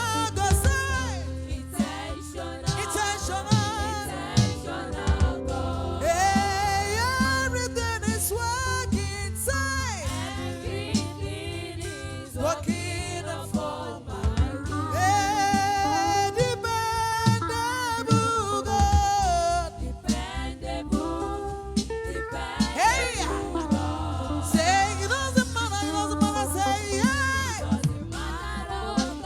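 Gospel worship music: a voice sings long, sliding melodic lines over instrumental backing with a steady bass.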